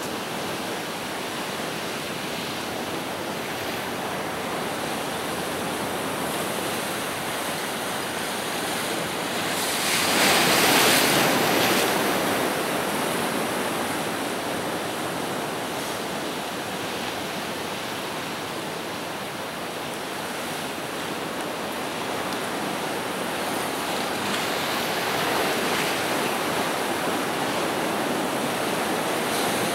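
Ocean surf washing and breaking on rocks, a steady rushing noise that swells louder for a couple of seconds about ten seconds in.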